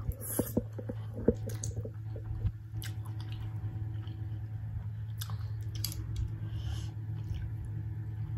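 Close-up chewing and wet mouth sounds of someone eating spicy fried instant noodles, with sharp smacks and clicks clustered in the first two seconds or so. A steady low hum runs underneath.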